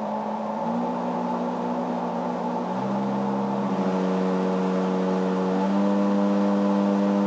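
Servo motor spinning a wooden test paddle in a plywood blower housing, a steady whir with a rush of air. Its hum jumps up in pitch in a few distinct steps as the motor is commanded up through its RPM settings in 200 RPM increments.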